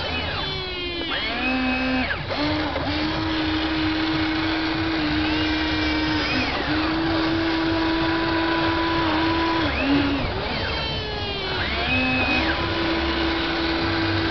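Small electric motors of a Hobby Engine radio-controlled toy excavator whining as the boom and bucket move. The pitch sweeps up and down as the motors start and stop, with a steady hum between the sweeps.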